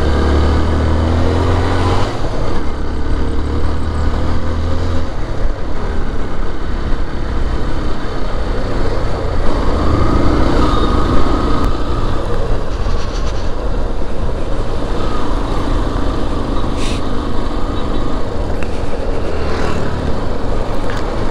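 A car being driven, its engine and road noise making a steady loud rumble, with the engine pitch rising in the first couple of seconds as it accelerates.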